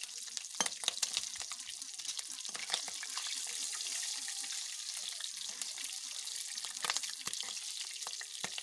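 Chicken leg pieces sizzling in hot oil in a kadai, with scattered crackling pops. Partway through, a spatula scrapes and stirs as the pieces are turned.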